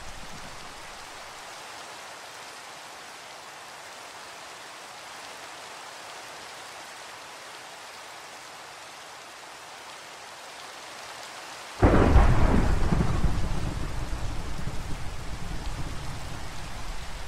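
Steady rain falling, then a sudden loud thunderclap about twelve seconds in, its low rumble rolling on and slowly fading.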